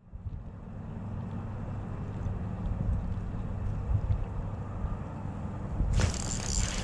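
Wind buffeting the microphone, a low steady rumble with a faint hum beneath it. About six seconds in, a rustling hiss with small clicks sets in over it.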